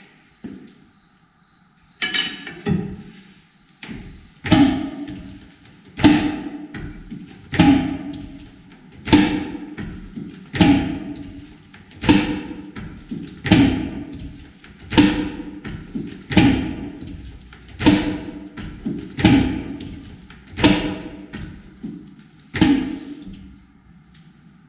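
Corliss valve gear worked by hand: a sharp metallic clack about every second and a half as each trip releases and the vacuum dashpot snaps an admission valve shut. About a dozen clacks, each with a short ringing tail, with a few lighter knocks before them as the motion gets going.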